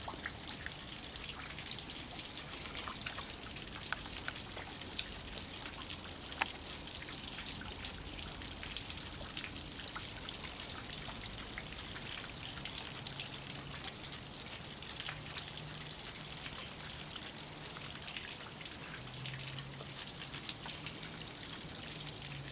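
Water rushing and splashing steadily where a stream spills down a small drop.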